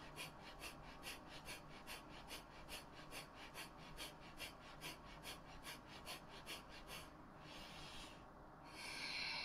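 Kapalabhati breathing: rapid, forceful exhales through the nose, soft and evenly spaced at about three to four short puffs a second, for around seven seconds. It ends with a longer exhale and then a deeper, louder breath near the end.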